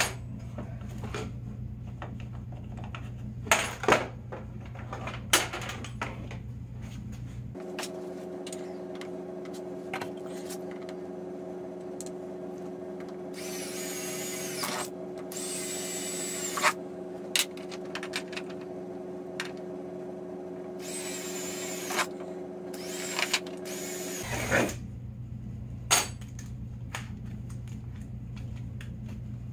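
Cordless drill boring rivet holes for jerry can brackets in a snowmobile's rear rack, in short bursts of whining drilling about halfway through and again a few seconds later. A few sharp knocks from handling parts come earlier, over a steady background hum.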